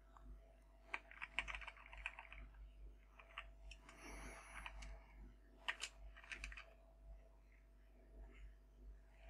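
Faint computer keyboard typing: clusters of quick keystrokes, about a second in and again near the middle, with a brief rustle about four seconds in.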